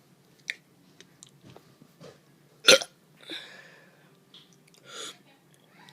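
A child's short, sharp hiccup-like gulp of air just under three seconds in, followed by softer breathy sounds.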